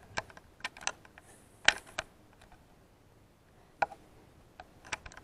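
About eight sharp little clicks and taps at uneven intervals, with near quiet between them: handling noise of a handheld camera being knocked and moved about.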